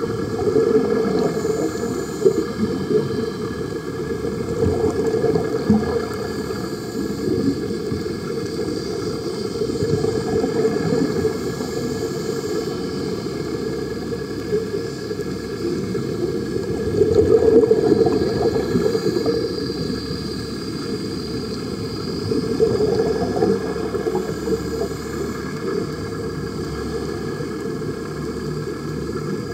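Muffled underwater noise through an action camera's waterproof housing: a dense, steady low rumble with bubbling from the air-fed diving helmets, plus a faint steady hum. It swells for a moment a little past the middle.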